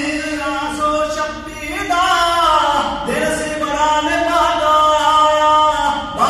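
Punjabi kavishri singing: male voices of a kavishri jatha singing unaccompanied, with long held notes that slide up and down in pitch.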